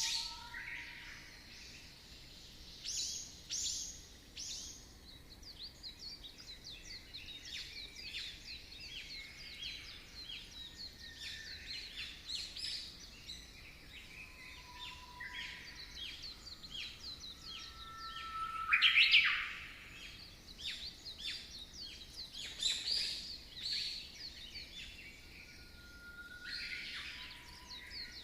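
A flock of chicks peeping together in a continuous chatter of short, high, downward-sweeping chirps, with louder bursts of calls here and there, the loudest about two-thirds of the way through.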